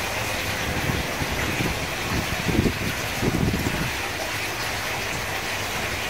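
Steady rush of running water, with a couple of low, dull knocks about halfway through.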